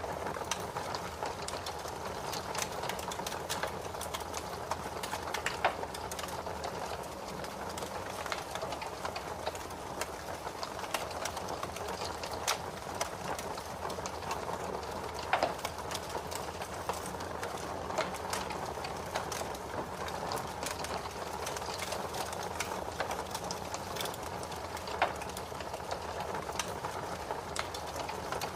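Fire in a fireplace crackling: a steady rustling hiss of flame with many small sharp pops and a few louder snaps scattered through.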